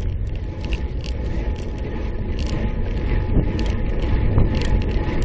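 Wind rushing over a handlebar-mounted camera's microphone on a road bicycle being ridden hard, a steady low rumble that grows a little louder, with irregular clicks and rattles from the bike.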